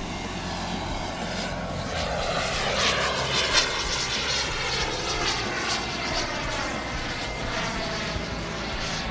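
Turbine engine of a radio-controlled model jet flying past, a steady jet roar and whine with a sweeping, phasing sound as its distance changes; briefly louder about three and a half seconds in.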